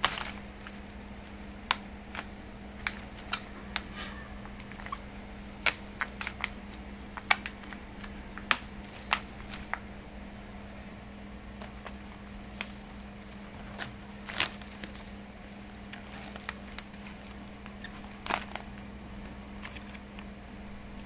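Plastic film being handled and peeled off a black plastic momo tray, crackling and crinkling in scattered sharp clicks, over a steady low hum.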